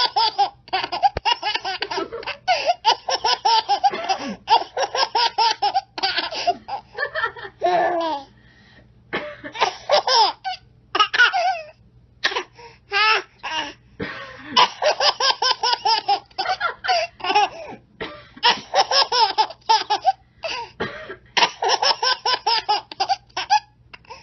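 A baby laughing hard in repeated fits of rapid, high-pitched laughs, with short pauses between the fits.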